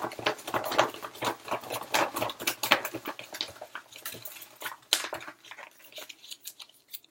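Paper and packaging being handled, with quick crinkling and clicking that thins out near the end.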